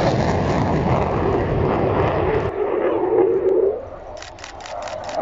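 F-16 fighter jet's engine roar in a flying display, loud and rough at first. About halfway through the sound changes abruptly to a humming drone, then drops to a quieter, more distant jet sound with a few short crackles near the end.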